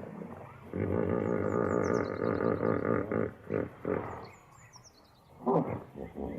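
Hippopotamus calls: one long, low call with a rich, buzzy tone lasting about two and a half seconds, followed by several short grunts. Small birds chirp in the background.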